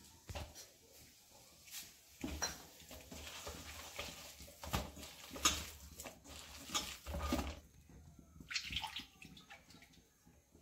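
Hand mixing gram-flour (besan) batter in a steel bowl: irregular wet squelches and scrapes, busiest from about two seconds in until near the end.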